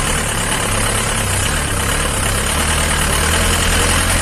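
Vehicle engine running with road noise, heard from inside the cabin; the low engine hum grows a little stronger about two-thirds of the way through.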